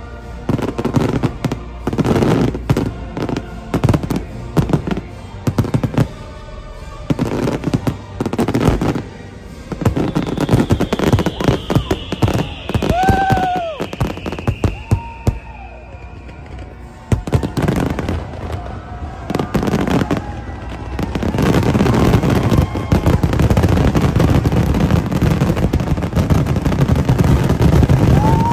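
Aerial fireworks bursting in quick succession, a run of sharp bangs and crackles. Over the last seven seconds or so they build into a dense, continuous barrage of booms and crackling, the finale volley.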